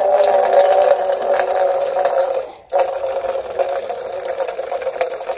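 A thin stream of water from an outdoor drinking fountain pouring into a stainless steel dog bowl, filling it with a steady, ringing splash. The sound breaks off for a moment about halfway through, then carries on.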